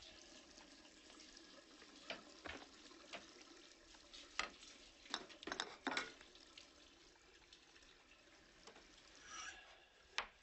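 Faint kitchen sounds: a wooden spoon stirring in a cooking pot, with a scatter of light knocks against the pot over a soft steady wash.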